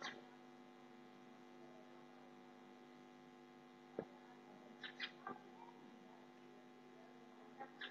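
Near silence: a steady low electrical hum, with a few faint short clicks, one about four seconds in and a couple about a second later.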